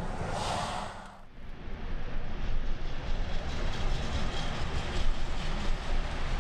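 Steady low rumble of a car driving along city streets: road and traffic noise. A short rush of hissing noise at the start falls away about a second in, then the rumble carries on.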